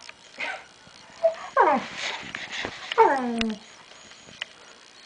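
Doberman puppy giving two short whining cries during rough play, each sliding down in pitch, about a second and a half apart, with a few sharp clicks around them.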